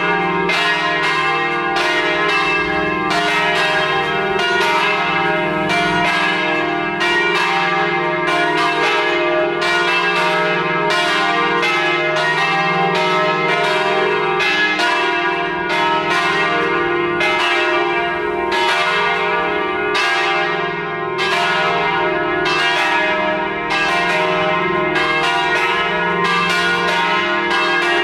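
Three swinging Paccard church bells, tuned E-flat, F and G and weighing from about 1,500 to 2,900 pounds, ringing all together in full peal, their strikes overlapping in an unbroken, steady clangour. This full peal is rung as the call to Mass.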